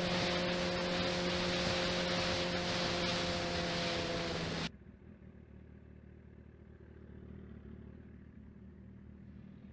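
Air compressor inflating the flat tire, running steadily with a loud hiss and a hum, then cutting off suddenly about four and a half seconds in. A quieter low rumble is left after it.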